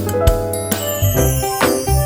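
Upbeat background music with keyboard-like notes over a steady drum beat.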